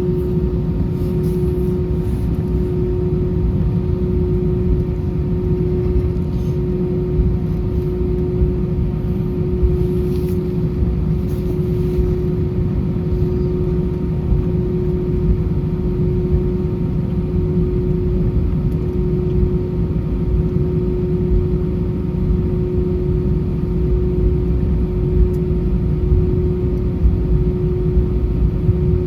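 Airbus A320-200 jet engines and air systems at low, steady power, with an even low rumble and a constant hum that neither rises nor falls.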